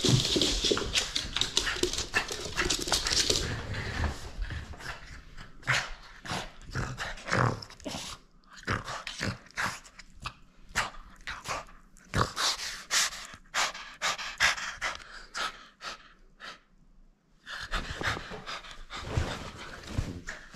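French bulldog panting in short, irregular breaths while it plays with a rubber toy, after a loud noisy stretch in the first few seconds.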